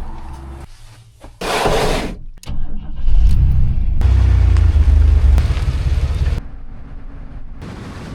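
Astro van engine running, heard in short cut-together clips, with a steady low rumble that is loudest in the middle.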